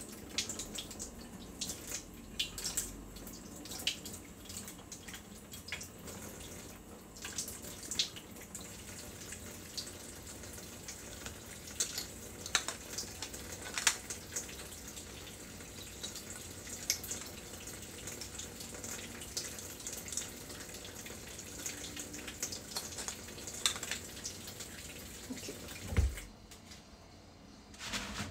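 Kitchen tap running into a sink while a blender jug and its parts are washed by hand, with frequent light clinks and knocks of the parts against the sink. Near the end there is a dull thump, and after it the running water stops.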